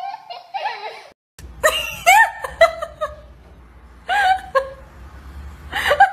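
Short, high-pitched bursts of laughter in several bouts, over a low steady hum.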